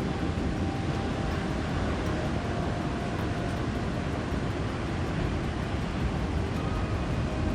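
Steady noise of rough sea and wind: heavy surf with wind buffeting the microphone.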